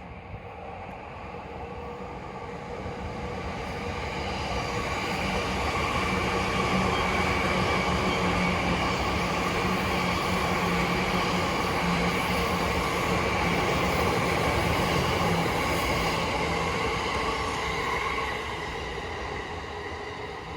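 JR East E235 series Yamanote Line electric train passing while climbing a gradient: a rumble with steady tones on top. It grows louder over the first several seconds, stays loud, and fades near the end.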